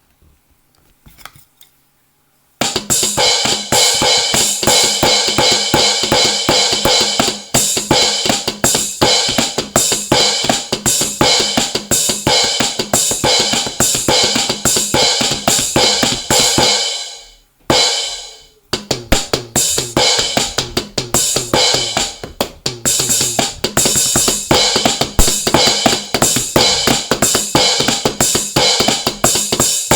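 Electronic drum kit played in a fast, busy pattern of kick, snare, hi-hat and cymbal sounds. It starts after about two and a half seconds of quiet, stops briefly about two thirds of the way through with a single hit in the gap, then starts up again.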